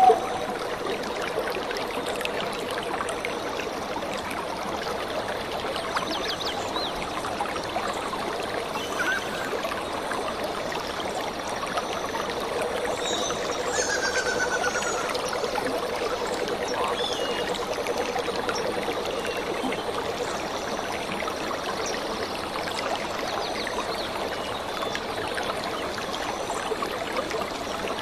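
Steady sound of flowing water, like a running stream, with a few faint high chirps mixed in around the middle.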